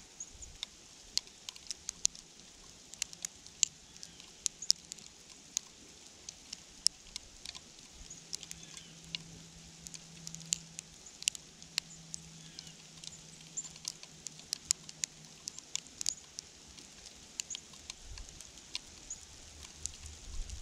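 Icy winter-storm precipitation ticking irregularly on surfaces: a sparse patter of sharp little clicks, several a second, over a faint outdoor hiss.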